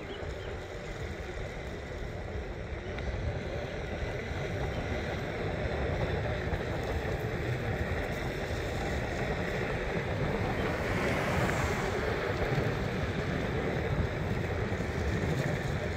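Steady rumble and rush of wind on the microphone while riding along a street, slowly growing louder.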